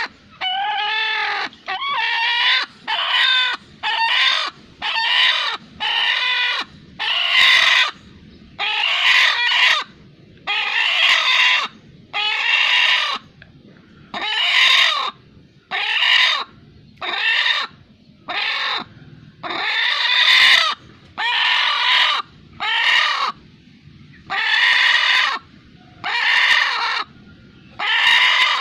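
Chicken giving a strange, repeated squawking call, roughly one loud call a second with short gaps between. The early calls are pitched and bending, and the later ones are harsher.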